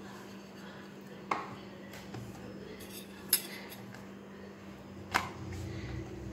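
Spoon clinking against a dish: three short, sharp clinks about two seconds apart, over a faint steady hum.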